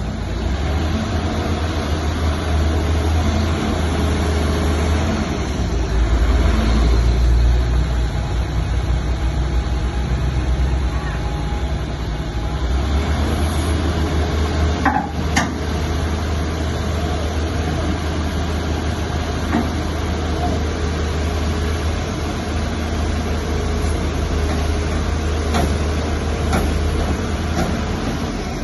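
Heavy diesel machinery running with a deep, steady drone that swells for a couple of seconds about six seconds in, and a pair of sharp knocks about halfway through.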